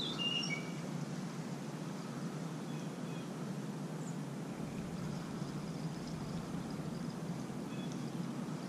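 Steady low outdoor background rumble with a faint hiss, with a few short bird chirps in the first second.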